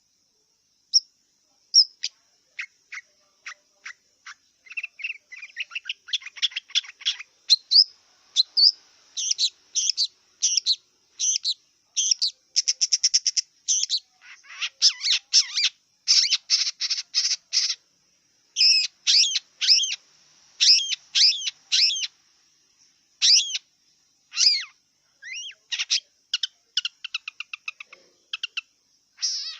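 Long-tailed shrike singing a varied, rambling song: quick single chips, rapid runs of repeated notes and sweeping whistled notes, delivered in phrases with short pauses between them.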